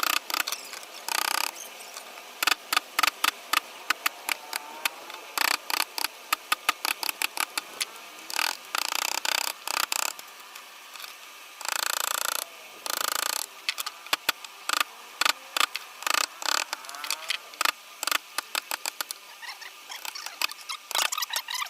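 Wood-carving chisel cutting into a wooden panel: many quick, irregular sharp taps, with a few short scraping strokes.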